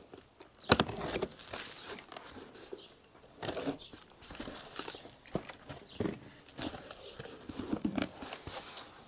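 Cardboard shipping box being opened by hand: flaps pulled back and cardboard and packing rustling, tearing and scraping in irregular bursts, with a sharp knock about a second in.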